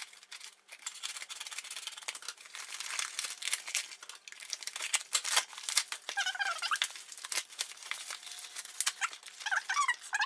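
Scissors cutting open a padded paper mailer, then plastic bubble wrap crackling and crinkling as a packaged box is pulled out and unwrapped, with a few short squeaks of the plastic near the middle and end.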